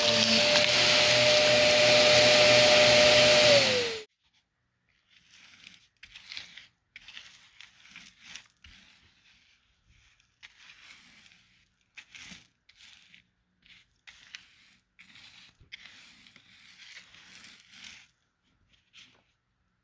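Vacuum cleaner running loudly with a steady motor whine, then stopping abruptly about four seconds in. After that come faint, scattered rustling and scraping sounds with a few light clicks.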